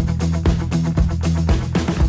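Upbeat background music with a steady drum beat.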